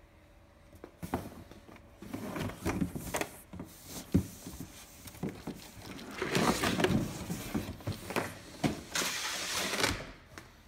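Cardboard box scraping and rustling, with scattered knocks, as a boxed steam-vacuum cleaner is lifted out and set down; the sharpest knock comes about four seconds in.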